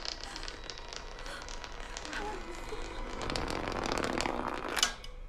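Quiet interior of a moving bus, with scattered small crackling clicks and a low rumble that builds through the second half, then drops away suddenly just before the end.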